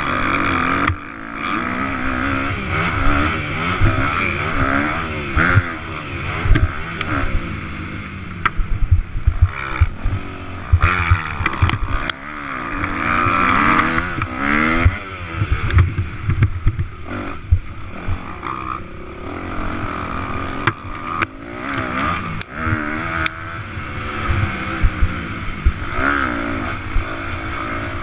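Motocross bike's engine heard from a camera mounted on the bike, revving up and down over and over as the rider works the throttle and gears around a dirt track. An uneven low rumble and frequent short knocks and rattles run under it.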